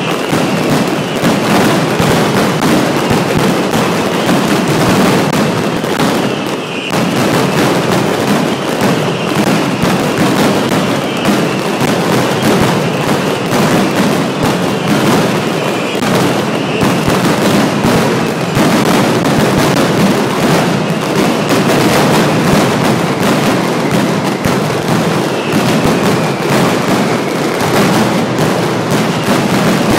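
Mascletà: a dense, unbroken barrage of firecrackers (masclets) exploding many times a second, loud and continuous, the bangs running together without a break.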